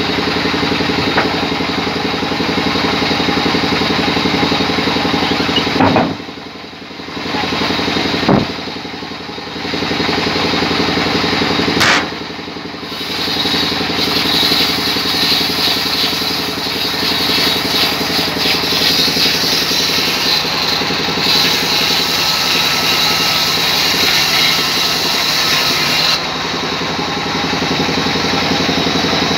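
A sawmill's vertical band saw running with a steady machine hum. From about 14 s to 26 s a harsher, higher sawing noise joins it as the blade cuts through a rain tree log. The sound dips briefly three times between about 6 and 13 seconds.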